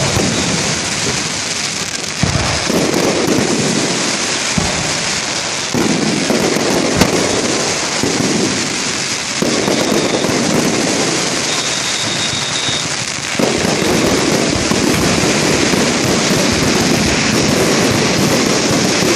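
Ground fountain firework spraying with a dense, continuous crackle like heavy rain. The crackle swells afresh every few seconds, with a couple of sharper single pops.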